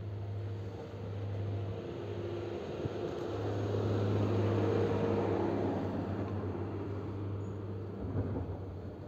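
Komatsu GD675 motor grader's diesel engine running steadily as it drives past plowing snow, growing louder to its closest point about four to five seconds in and then fading.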